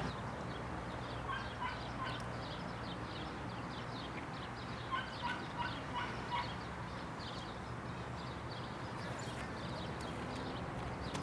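Birds calling in short, repeated notes, in two bouts, over a steady low background hum.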